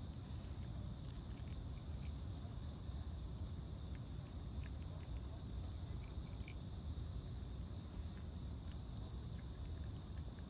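Night insects, crickets, calling: a steady high trill, joined from about halfway by short high chirps repeating roughly every second and a half, over a steady low rumble. A few faint small clicks sit underneath.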